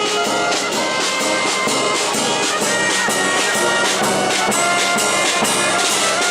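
Loud music with brass instruments and a steady beat.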